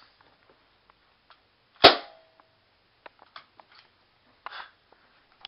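A single sharp gunshot bang about two seconds in, with a short ringing decay, followed by a few faint clicks and knocks.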